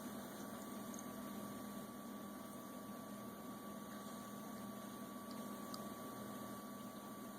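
Steady low hum and hiss with a faint high whine: indoor room tone.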